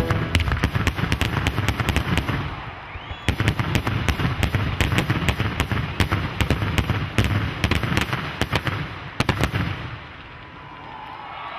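A volley of aerial fireworks bursting overhead: many sharp bangs in quick succession over a low rumble. There is a short lull about three seconds in, and the bangs stop near the end.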